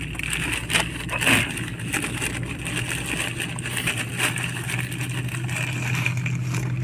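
Polythene mailer bag rustling and crinkling in the hands as it is handled and pulled open, in short irregular crackles. A steady low mechanical hum runs underneath.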